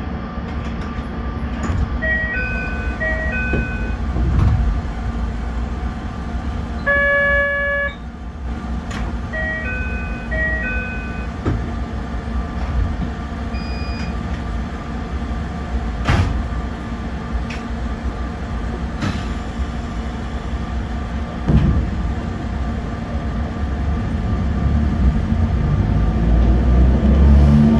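Narrow-gauge electric train standing at a platform with a steady electrical hum. Short patterns of electronic chime tones sound twice, and a single one-second buzzer-like tone comes about seven seconds in. Near the end the motors whine, rising in pitch, as the train starts to pull away.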